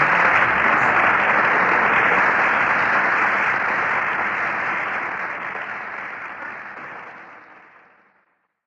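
Audience applause at the close of the song, holding steady and then fading out over the second half until it is gone just before the end.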